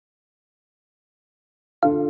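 Silence, then near the end intro music starts with one sharply struck, ringing note.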